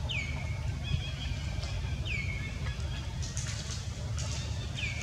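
A baby macaque giving three high squealing calls about two seconds apart, each falling in pitch and ending on a short held note, over a steady low rumble.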